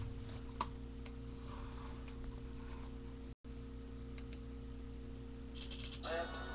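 Steady low electrical hum with a few faint, scattered clicks, and a brief dropout to silence about halfway through.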